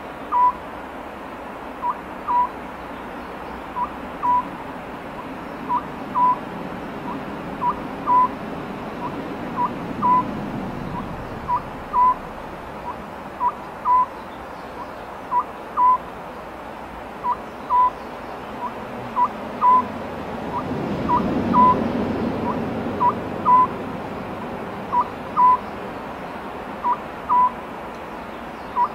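Oriental scops owl calling: a two-note phrase, a short note then a slightly longer one, repeated steadily about every two seconds. A low background rumble swells twice beneath the calls.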